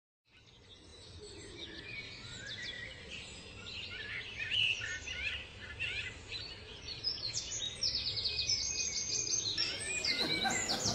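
Several small songbirds chirping and singing. The sound fades in at the start and grows busier, with quick runs of high repeated notes in the second half.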